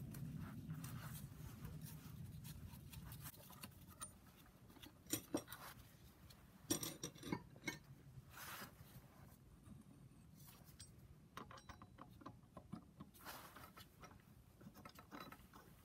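Faint scattered clicks, taps and scrapes of metal tools and parts being handled on an engine's cylinder head while the screws of a camshaft holding jig are slackened.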